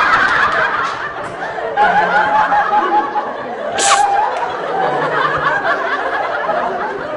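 People laughing and chattering, with one short, sharp hissing burst about four seconds in.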